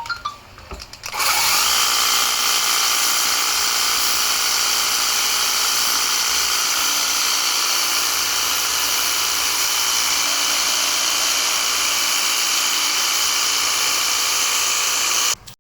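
Electric pressure washer running, its water jet spraying an air conditioner with a steady high whine and hiss. It starts up about a second in after a short pause with a few clicks, and cuts off abruptly near the end.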